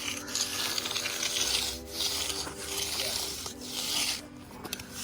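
Magnesium float (mag) scraping over wet concrete in several long sweeping strokes, each a rasping swish of a second or so.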